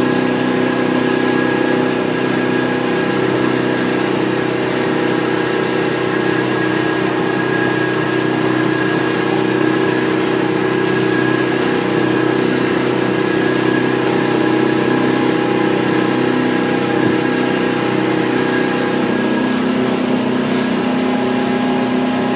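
The engine of a Hardy Navigator motor boat running steadily under way, heard from inside the cabin as an even hum with several held tones. Its tone shifts slightly near the end.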